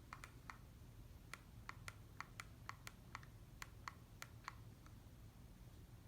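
Harbor Breeze two-blade ceiling fan running faintly, with a low steady hum and a quick, irregular series of light clicks that stops about four and a half seconds in.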